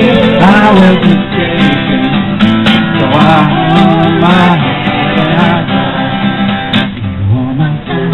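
Acoustic guitar strummed in a folk song, with a man and a woman singing along.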